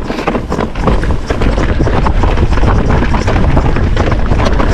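Wind rushing over the microphone, with many sharp rattles and knocks from a mountain bike's frame, chain and suspension as it runs fast over a rocky trail.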